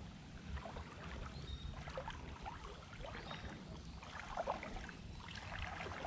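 Shallow creek water sloshing and splashing around wading legs in small irregular bursts, over a low steady rumble.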